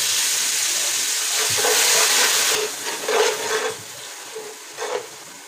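A little water poured into hot oil and spices in a cooking pot, sizzling loudly in a hiss of steam for about two and a half seconds before dying down.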